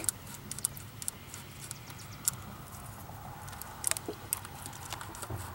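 Small, irregular metal clicks and scrapes from a feeler gauge being worked under a Cummins 6.7 diesel's rocker arm while the valve-lash adjusting screw is turned, setting the lash to a slight drag. A faint low hum runs underneath.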